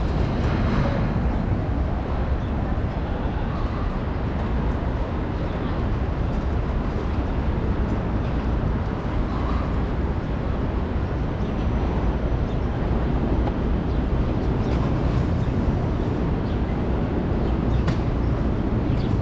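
City street ambience: a steady low rumble of traffic with faint scattered voices and small clicks.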